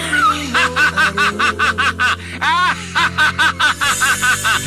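A man's voice in a long, rapid run of villainous laughter, 'uhahahaha', about five laughs a second, from a pachinko machine's animation over background music.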